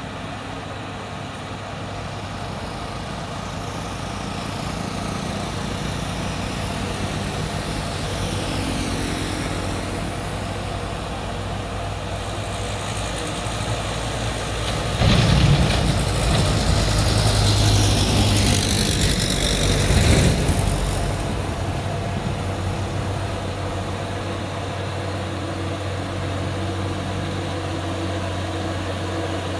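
Heavy vehicle engines, trucks or buses, running on a steep uphill road with a steady low hum. The sound builds, and one vehicle passes close about halfway through, loudest in a few sudden swells, then settles back to a steady engine hum.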